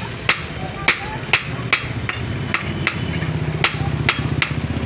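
Hand hammer striking iron on a blacksmith's anvil in repeated blows, about two a second with a short gap midway, some blows leaving a brief metallic ring. A low engine-like drone runs underneath and grows louder in the second half.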